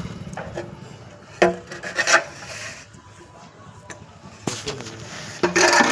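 Plastering trowel scraping and knocking against a wall in a few short, irregular bursts.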